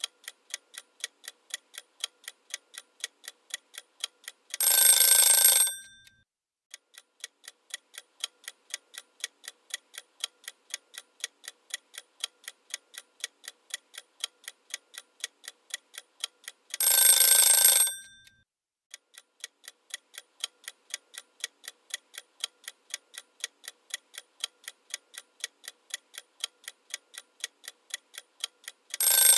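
Quiz countdown sound effect: a clock ticking rapidly and evenly, broken three times by an alarm-clock bell ringing for about a second and a half, about four and a half seconds in, about seventeen seconds in, and right at the end. Each ring marks time up on a question.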